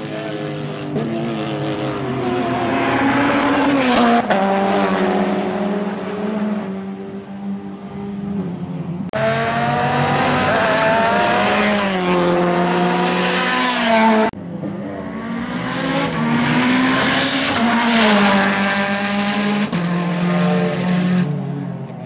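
Race car engines at full throttle on a circuit, the pitch rising under acceleration and dropping back several times. The sound cuts off abruptly and restarts twice, as between separate passes.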